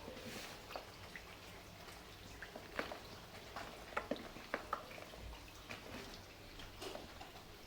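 Dried sand-and-cement crumbling, giving scattered small crackles and drip-like ticks over a faint steady rain hiss.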